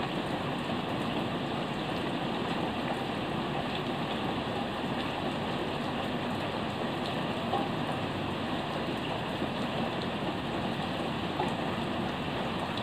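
Steady heavy rain falling, an even hiss with a few sharper drip ticks standing out here and there.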